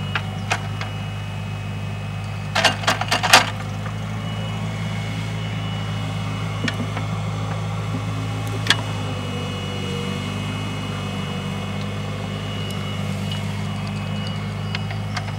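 A heavy machine's engine running steadily with a low, even hum, with a quick cluster of sharp clanks about three seconds in and a single clank near nine seconds.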